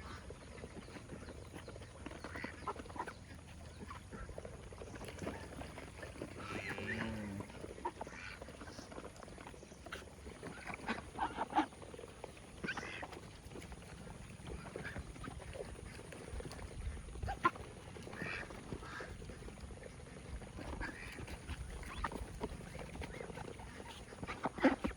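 Ducks quacking in short, scattered calls, with a few clicks and knocks between them.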